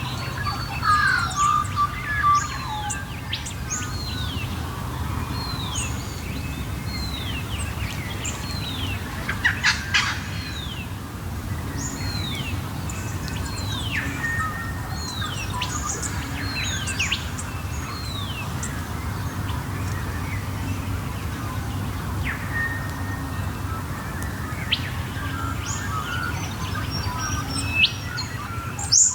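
Dawn chorus of Australian birds: one bird repeats a clear downslurred whistle about once a second while others chirp and call around it, over a low steady hum.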